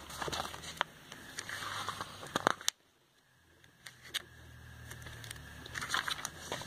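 Glossy catalogue pages being turned by hand: paper rustling, crackling and flapping in quick, irregular bursts with a few sharp crisp clicks. The sound cuts out completely for just under a second about three seconds in.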